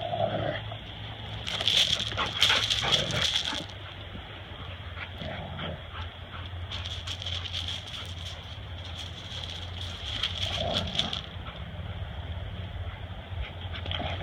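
Rottweilers and a pit bull playing rough: a few short whimpering growls among stretches of scuffling and rustling as the dogs chase and grapple.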